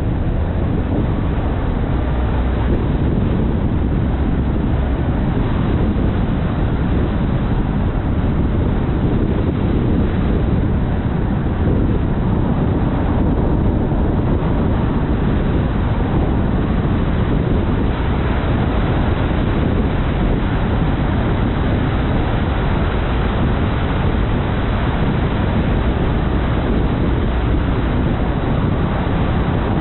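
A car driving steadily along a road: an even rumble of tyre and wind noise, heaviest in the low end, with no change in pace.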